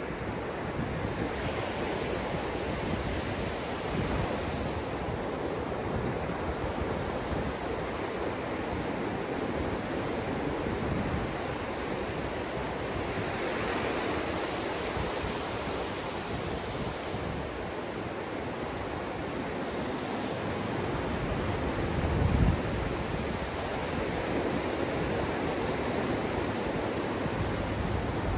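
Ocean surf breaking offshore and washing up the beach, the foam swelling in loudly around the microphone twice, once early and again about halfway through. Wind rumbles on the microphone, with one brief low thump about two-thirds of the way through as the loudest moment.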